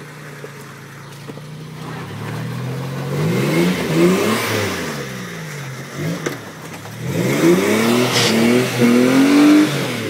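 Lifted Toyota 4x4's engine revving in two surges as it crawls over rocks, its pitch rising and falling, with a sharp knock near the end.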